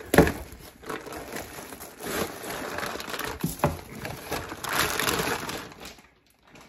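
Packaging crinkling and rustling as parts are unwrapped and handled, with a sharp click at the start and a couple of light knocks midway.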